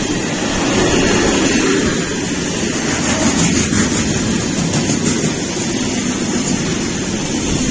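Freight train rolling past, a loud, steady rumble and rushing noise.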